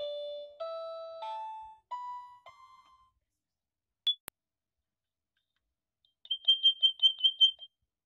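Toy electronic keyboard playing single notes one after another, climbing in pitch and dying out by about three seconds in. About four seconds in there is a single short high beep with a click, and near the end a rapid run of about nine short high beeps.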